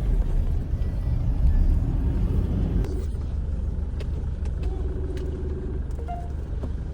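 Steady low rumble of a car on the road, with a few faint clicks and brief faint tones over it.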